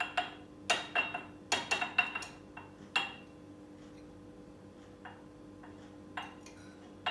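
A metal spoon clinking against a bowl as tablespoons of almond flour are scooped and knocked in: a quick run of ringing taps in the first three seconds, then a few fainter ones.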